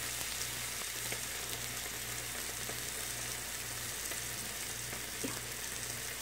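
Frozen pork sausage patties sizzling on a Dash electric griddle: a steady frying hiss with small scattered crackles.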